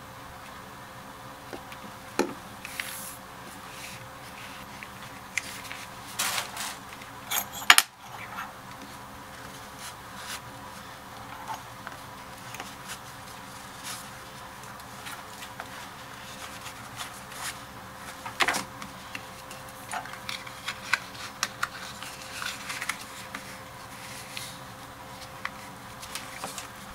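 Scattered handling noises at a wooden workbench: leather rubbing, small clicks and knocks, and metal clinks as steel pricking irons are slid into the pockets of a leather chisel case.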